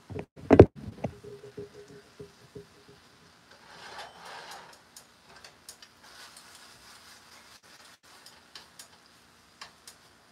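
Steak frying in a pan: scattered crackles and pops of spitting fat, with tongs clicking against the pan as the meat is turned. A sharp knock about half a second in is the loudest sound.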